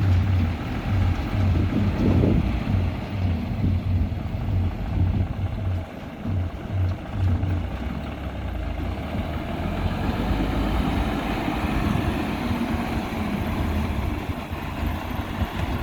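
Heavy diesel engine running with a low rumble that pulses unevenly at first and settles to a steadier drone after about eight seconds.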